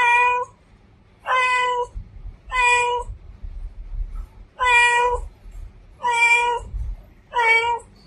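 A cream-and-white domestic cat meowing repeatedly: six clear, drawn-out meows, each about half a second long, coming at a steady pace of roughly one a second.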